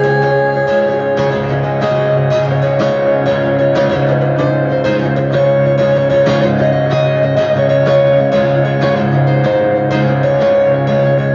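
Background music: a guitar-led instrumental with steady plucked notes.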